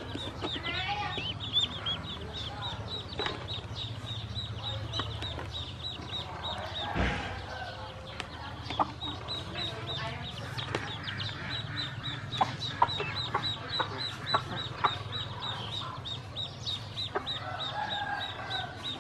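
Ducklings peeping, a fast, continuous run of high chirps, several a second, with scattered sharp little clicks and a steady low hum underneath.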